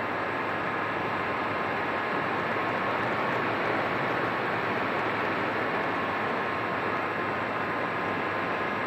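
Radio-controlled model airplane in flight, heard from its onboard camera: a steady rush of wind and propeller noise with a faint, even motor whine.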